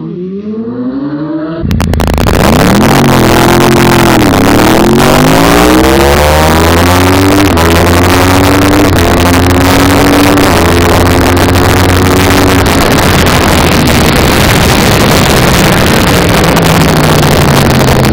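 Yamaha R1 inline-four sportbike engine accelerating hard through the gears, its pitch climbing and dropping back at each upshift, four times. A loud rush of wind noise on the mic runs over it at high speed. Near the end the engine note falls as the bike slows.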